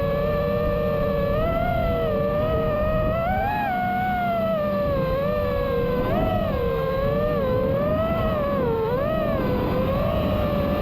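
Brushless 1960KV motors of a 5-inch FPV quadcopter whining in flight, heard from the craft itself, their pitch rising and dipping with each throttle change every second or so.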